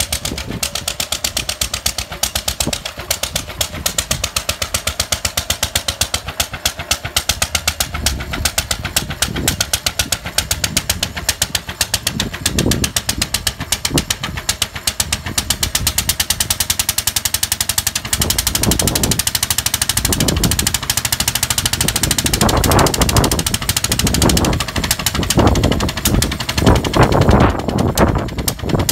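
Lister engine on a home-built motorbike running with a fast, even beat of firing strokes. In the second half it gets louder, with repeated surges as it is opened up.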